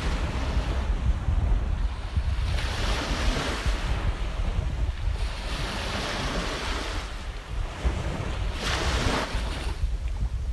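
Sea waves washing onto a rocky shore, rising in repeated surges, with wind buffeting the microphone.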